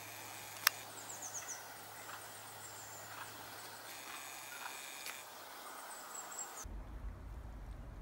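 Outdoor garden ambience with small birds chirping in quick, falling notes, and one sharp click under a second in. Near the end the sound cuts abruptly to a low rumble.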